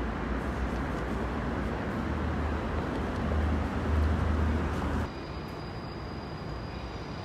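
City street traffic noise, a steady hiss of passing vehicles with a heavy low rumble; about five seconds in it cuts to a quieter street ambience with a thin, steady high-pitched whine.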